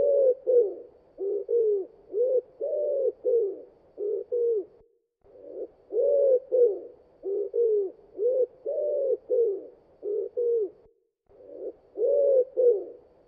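A dove cooing: a steady run of short low coos, about two a second, in phrases of about five seconds with brief pauses between them.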